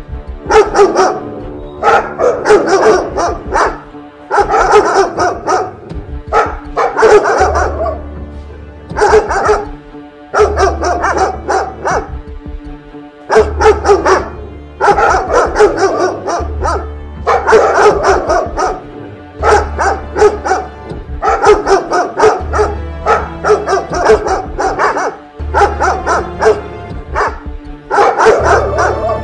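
Dogs barking in rapid, repeated clusters over background music. The music has a steady drone and a deep bass pulse that comes in about seven seconds in and repeats every few seconds.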